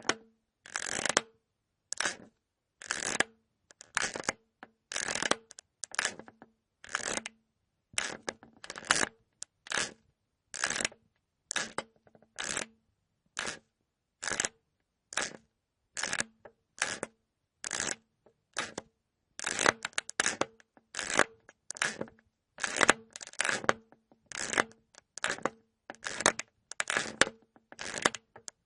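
Cartoon squeak-and-crunch sound effect: short crackling, crunching bursts, each with a faint squeaky tone, repeated about once a second with silence between.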